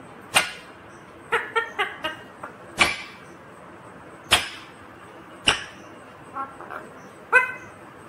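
Rose-ringed parakeet giving four short, sharp squawks spaced over several seconds, with a few quick pitched chirps between them and a longer call near the end.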